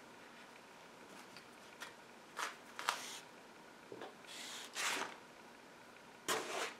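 Faint rustling and scraping of handwork: black yarn and a tapestry needle being drawn through crocheted fabric, in several short bursts with quiet between them.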